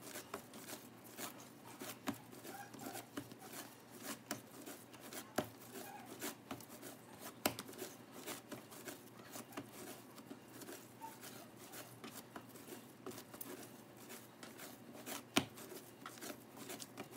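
Sticky, well-hydrated pizza dough being kneaded by hand on a countertop: faint, irregular sticky clicks and soft slaps as the dough is pressed, folded and peeled off the counter and fingers, with two louder smacks about seven and fifteen seconds in.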